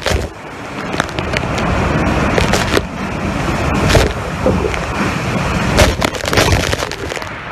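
Hurricane-force wind and driving rain, with gusts buffeting the microphone and scattered sharp knocks. It eases briefly just after the start, then builds again.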